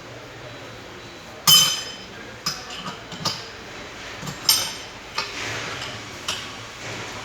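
Metal clinks and knocks of tools and parts on a car air-conditioning compressor being taken apart. There are two loud ringing strikes, about one and a half seconds in and about four and a half seconds in, with lighter clinks between them.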